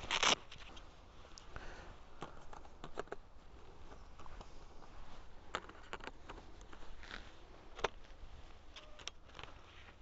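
Camera gear being handled while a flash unit is fitted onto a camera: a short rustle right at the start, then scattered faint clicks and small rustles.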